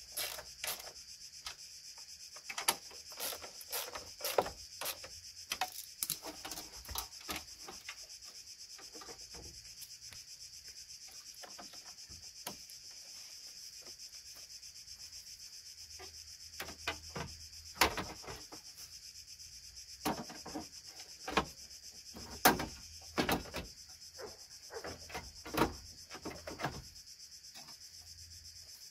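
Hand tools and plastic car front-end parts being handled: irregular clicks, knocks and short scraping and rubbing noises as a screwdriver and hands work on the bumper and the radiator and condenser area.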